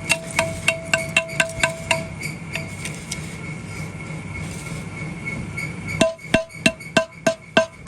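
Steel being hammered, about three evenly spaced strikes a second, each ringing like a bell. The strikes are fainter in the middle and loud and sharp again from about six seconds in.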